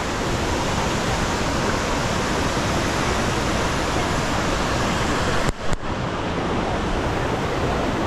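Steady, even rushing roar of a roughly 100-metre waterfall and the shallow river running over boulders, with a brief dropout about five and a half seconds in.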